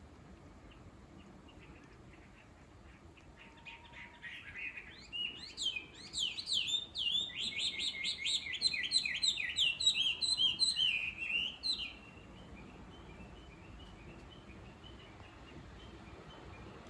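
A songbird singing a fast, loud run of rapidly repeated sweeping notes. The song builds about four seconds in, holds for roughly eight seconds and stops abruptly, with faint scattered calls around it.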